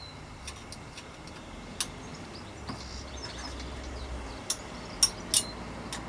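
A few sharp, separate clicks and clinks of a bicycle light's handlebar clamp being handled and worked loose, the loudest two close together about five seconds in.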